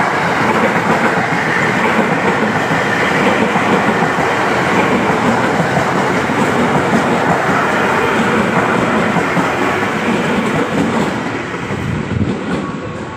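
KRL electric commuter train running past at close range, its wheels clicking over the rail joints in a steady, loud rush. The noise eases off near the end as the last cars go by.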